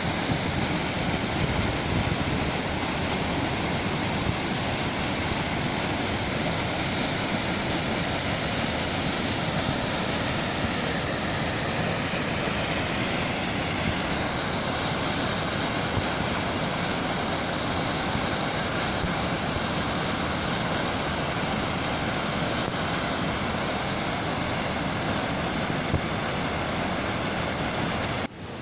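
Waterfall: a steady rush of falling water, even and unbroken, cutting off abruptly near the end.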